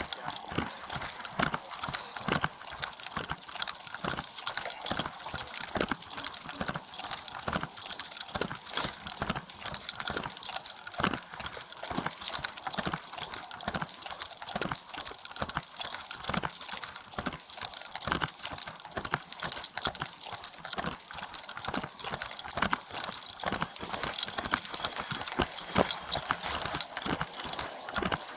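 Footsteps on hard ground with a run of clicks and knocks from gear rattling, heard close up through a body-worn camera.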